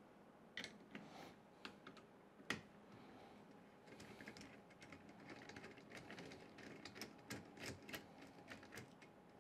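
Faint, irregular light clicks and ticks of small metal hardware and a hand tool being worked by hand, with one sharper click about two and a half seconds in and a quicker run of ticks in the second half.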